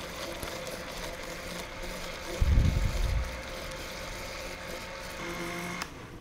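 Countertop blender motor running steadily, blending mango, yogurt, milk and ice cubes. A loud low thump comes about two and a half seconds in, and the motor cuts off near the end.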